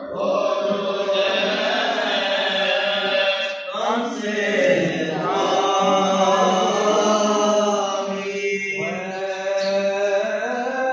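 Coptic Orthodox liturgical chant: a voice sings long, drawn-out melodic lines with brief breaks about four and eight and a half seconds in.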